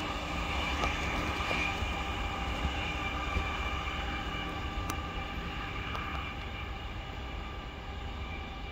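Freight train of ethanol tank cars rumbling along the rails, with a steady high whine over a low rumble, fading gradually.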